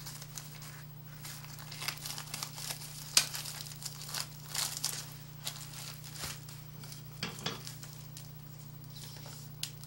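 Clear plastic sandwich bag crinkling in irregular rustles and crackles as a baked egg square is slid into it and the bag is handled and pressed shut, over a steady low hum.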